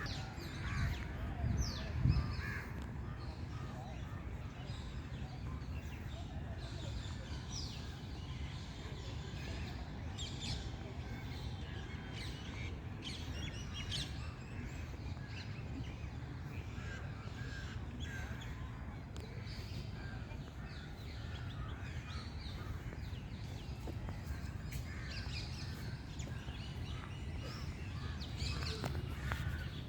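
Many birds calling and chirping in short scattered notes over a steady low background rumble, with a couple of louder knocks in the first two seconds.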